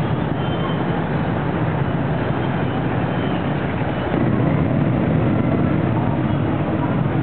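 Dense street traffic, mostly small motorbikes and scooters running and passing close by, with cars among them. A steady mass of engine noise that gets a little louder about four seconds in.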